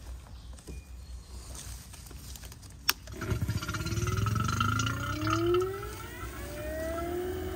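A click, then an HVAC vacuum pump starting up to pull a vacuum on the refrigerant system, its pitch rising over a few seconds as it comes up to speed.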